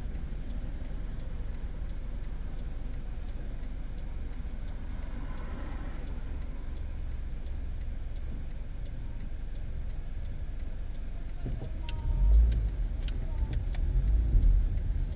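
A car's engine and cabin rumbling low and steady, with faint regular ticking. About twelve seconds in, a louder low rumble and a few clicks come in.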